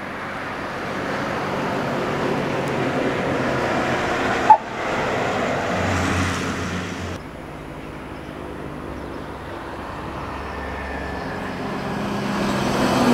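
Intercity bus passing close by: engine and tyre noise swells as it approaches and goes past, with a brief sharp sound about four and a half seconds in. The noise drops suddenly about seven seconds in, then builds again as another vehicle approaches near the end.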